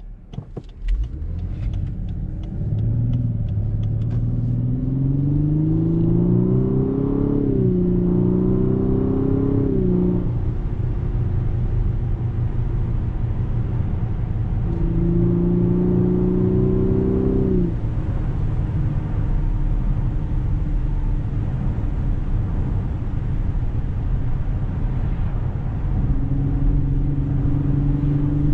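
A Lexus LS 500's 3.5-litre twin-turbo V6, heard from inside the cabin, pulling away under acceleration: the engine note climbs and drops back at gear changes about 7 and 10 seconds in. It pulls harder again briefly midway, then settles to a steady cruise over constant low road rumble. A few quick clicks sound in the first seconds.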